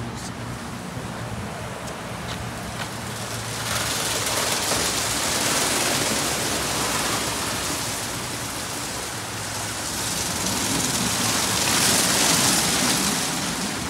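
PDQ ProTouch Tandem automatic car wash running a wash cycle: a steady rushing hiss of water spray that grows louder about four seconds in and swells again near the end.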